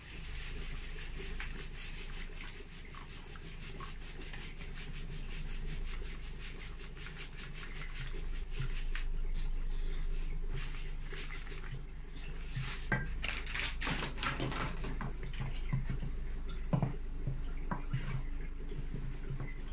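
Wooden spoon stirring gari into hot water in a pot to make eba: a fast, steady run of rubbing, scraping strokes against the pot. From about two-thirds of the way through, the strokes turn into heavier knocks as the thickening dough is pressed and turned.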